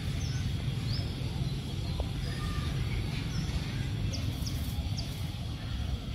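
A bird giving short, high chirps, each a quick slide in pitch, repeated every half second or so. Under them runs a steady low rumble.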